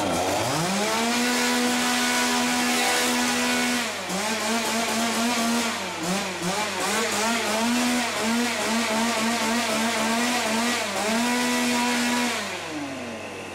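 An engine revving: it climbs to a steady high speed, is blipped up and down unevenly for several seconds, holds high again, then drops back near the end.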